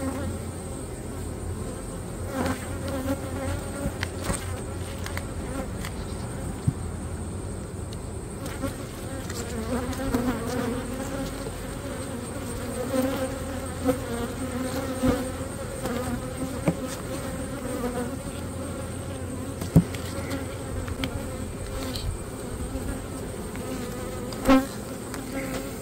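Honeybees buzzing around an open hive in a steady hum, with a few sharp clicks, the loudest about twenty seconds in and near the end.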